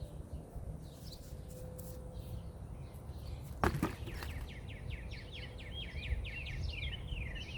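A songbird singing a rapid run of short, repeated high notes, about four or five a second, in the second half, after a sudden sharp sound with a falling sweep about halfway. A steady low rumble sits underneath.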